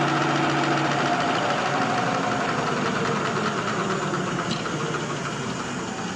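XY-OQ-7000A automatic napkin folding machine running. Its hum of several steady tones breaks up after about a second, and the whole machine gets slowly quieter as its motor speed is turned down toward a stop.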